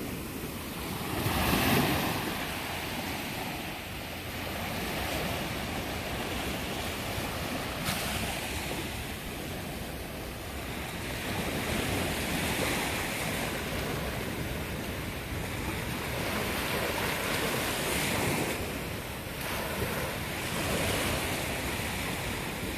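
Small sea waves washing up and breaking on a sandy beach: a steady rush of surf that swells and ebbs every few seconds, loudest about two seconds in.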